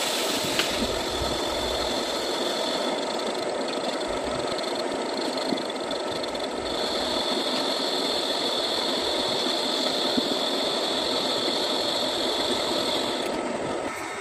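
Metal lathe running, taking a turning cut on a final drive part's sprayed aluminium-bronze coating. A steady high-pitched tone joins the machine noise about halfway through. Both cut off shortly before the end, as the lathe stops.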